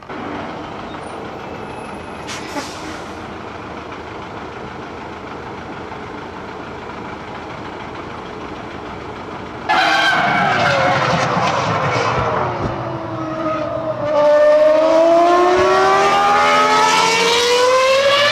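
Ferrari Formula One car's V10 engine running on the track, at first faint and steady in the distance. About halfway through it suddenly gets much louder, and its pitch falls as the car slows. Near the end it climbs steadily as the car accelerates hard.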